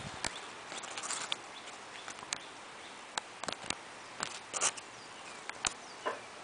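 Outdoor ambience: a steady hiss with scattered sharp clicks and ticks, and a few faint short chirps.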